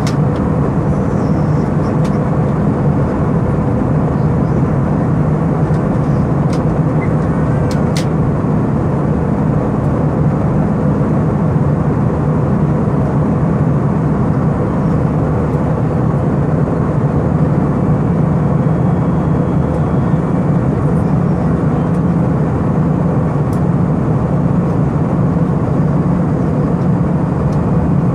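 Steady cabin drone of an Airbus A319 in flight: engine and airflow noise, low and even, with a few faint clicks in the first several seconds.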